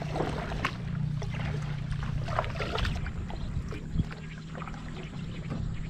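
Kayak paddle strokes through lake water: irregular splashes and dripping, over a steady low hum. A single sharp knock about four seconds in.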